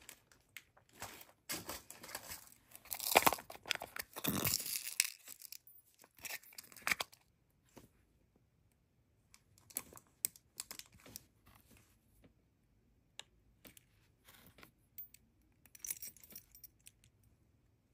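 Hands rummaging through jewellery-making supplies: plastic packaging rustling and crinkling, with small clicks and jingles of little metal parts. The rustling comes in irregular bursts, busiest in the first seven seconds, then sparse clicks with short gaps.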